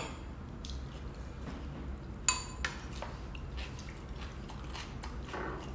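Spoon and fork clinking a few times against ceramic bowls and a plate, sharpest about two seconds in, over a low steady room hum.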